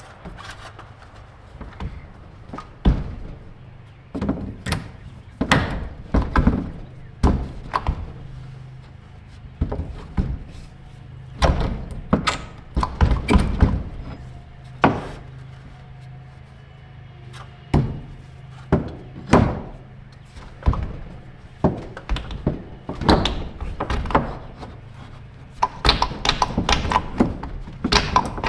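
A long series of irregular dull thuds and knocks, sometimes single and sometimes in quick clusters, over a faint steady low hum.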